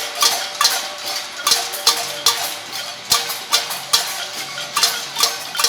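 Pots and pans being banged in a cacerolada protest. Many overlapping, irregular metallic clangs, about two to three loud strikes a second, each ringing briefly.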